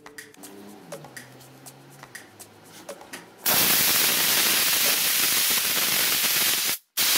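McCulloch handheld steam cleaner hissing as it sprays a jet of steam. The hiss starts loud about three and a half seconds in, after a quieter stretch, and breaks off for a moment near the end.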